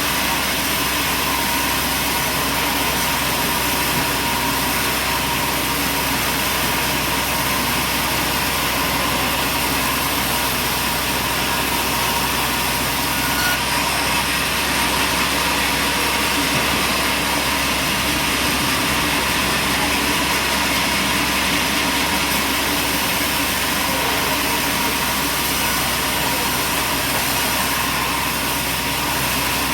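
Steady machine noise at a constant speed, with a continuous hum and no changes in pitch or level.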